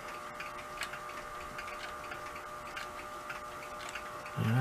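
Steady ticking of a clock, the battery-powered quartz movement of a birdhouse-style cuckoo clock, stepping its hands with regular clicks.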